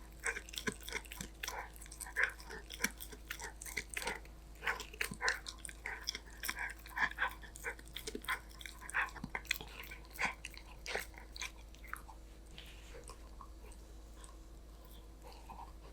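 Golden retriever puppy chewing a snack: quick, irregular crunching bites that thin out and stop about twelve seconds in.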